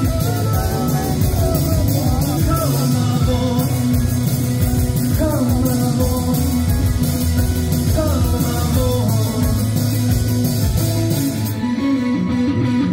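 Live rock band playing, with a male singer singing into a handheld microphone over electric guitar, heard as amplified through the venue's PA.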